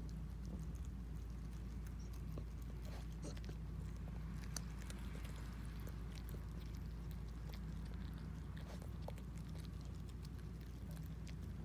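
A dog chewing crumbled food off a mat: many small, scattered clicks and crunches. A steady low hum runs underneath.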